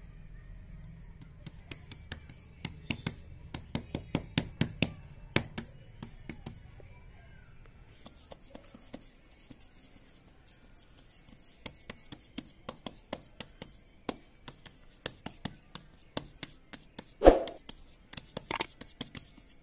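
Hands patting and slapping fresh cow dung flat in a plate mould: irregular soft wet slaps in two spells, with one louder thump near the end.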